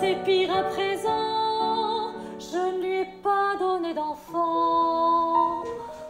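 A woman singing a solo melody in a classical, operatic style, holding long notes with vibrato.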